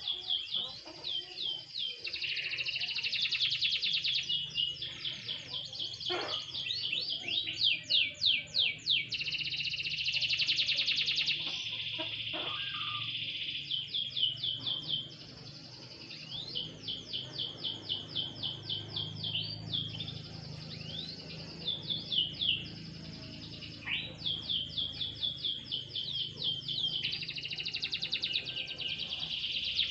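Domestic canary singing a long, near-continuous song of rapid trills and rolled runs of repeated notes, with brief lulls, the longest about halfway through.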